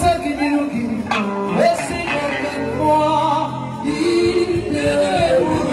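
Singing amplified through a microphone, with music underneath: a woman sings into a handheld microphone.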